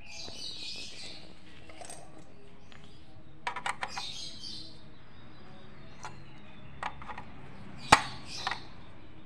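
Sharp metal clicks and short scrapes as the jack-socket nuts on an audio mixer's panel are turned by hand and gripped with pliers. There is a quick cluster of clicks about three and a half seconds in, and the loudest single click comes near the end.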